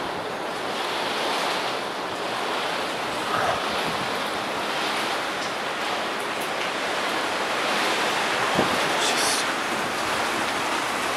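Storm wind roaring steadily through the trees, with rain falling, and a couple of faint knocks.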